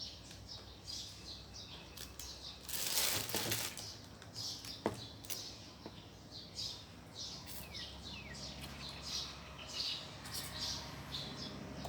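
Small birds chirping irregularly in the background, with a few quick falling notes about seven seconds in. A brief rush of noise about three seconds in is the loudest thing heard.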